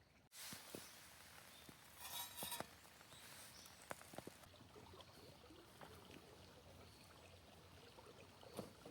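Faint, steady outdoor hiss with scattered small clicks and a brief rustle about two seconds in.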